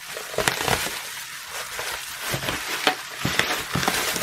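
Plastic bubble wrap crinkling and rustling as it is pulled and peeled off a boxed package, with many irregular crackles.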